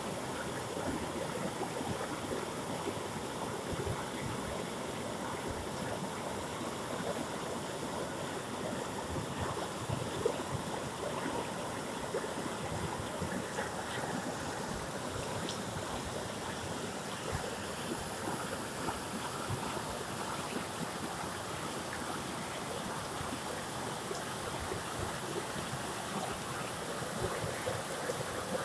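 Shallow rocky river rushing over boulders and cobbles in small rapids: a steady, even rush of white water.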